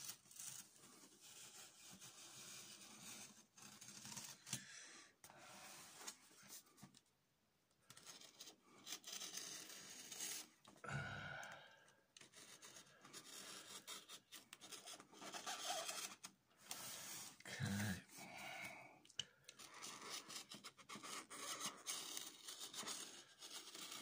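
Snap-off utility knife scraping and slicing through packing tape and cardboard along a box's seams, in faint, irregular strokes with a short pause about seven seconds in. Two dull knocks, about eleven and eighteen seconds in.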